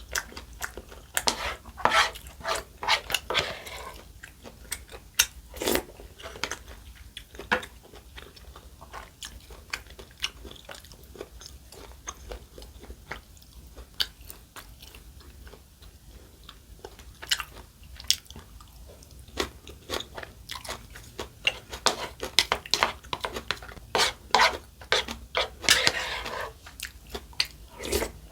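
Close-miked eating: biting, crunching and chewing of food in the mouth. The crisp crunches come thick and fast in the first few seconds and again near the end, with quieter chewing in between.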